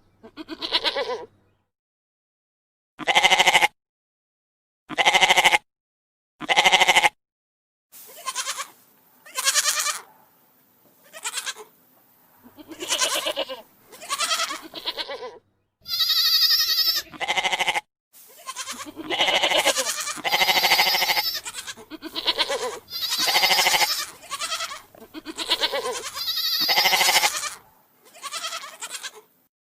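Goats bleating: a series of separate calls, each lasting about half a second to a second and a half, some higher and some lower, spaced out at first and coming closer together in the second half.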